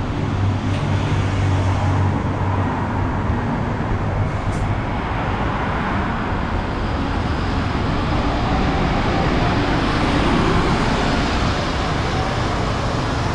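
MAN double-decker diesel bus running at the stop with a steady low engine hum. It then pulls away, and the engine and road noise swell about two-thirds of the way through.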